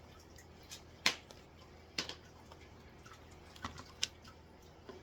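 Scattered light clicks and taps from handling cardboard token boards and box packaging, the loudest about a second in.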